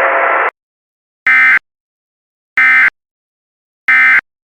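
Emergency Alert System end-of-message signal: three short, identical bursts of screechy digital data tones about 1.3 s apart, marking the end of the alert. Before them, a steady radio-like hiss cuts off about half a second in.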